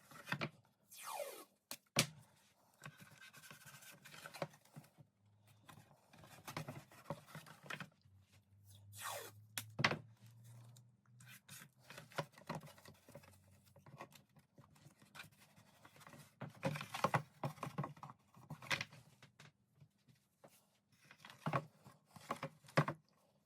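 Hands working thin wooden model-boat parts on a workbench: irregular scrapes, light knocks and taps, with two brief rasps that fall in pitch, one near the start and one about nine seconds in.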